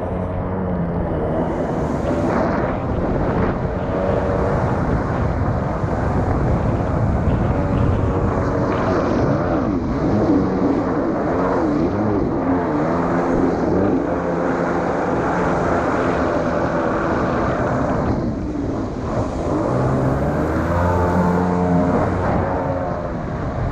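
1989 Kawasaki 650 SX stand-up jet ski's two-stroke twin engine running under way, its pitch rising and falling repeatedly as the throttle is worked.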